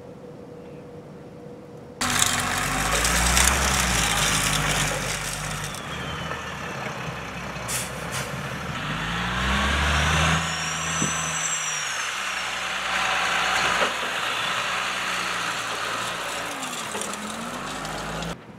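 Heavy work truck's diesel engine running, starting suddenly about two seconds in, its pitch stepping up and down as it pulls through the gears. A brief high squeal rises and falls about halfway through.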